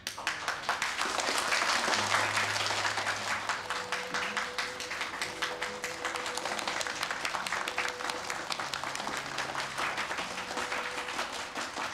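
A small group of people applauding, starting suddenly and going on steadily, with soft background music underneath.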